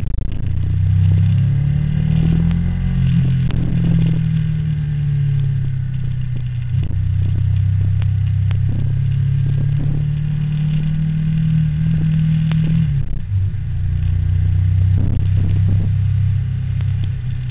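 A motor vehicle engine running loudly. Its pitch steps up and down a few times as it speeds up and slows, and a few short knocks sound over it.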